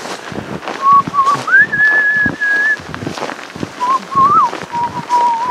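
A man whistling a slow tune in long held notes with small slides between them, over the crunch of his snowshoe steps in powder snow.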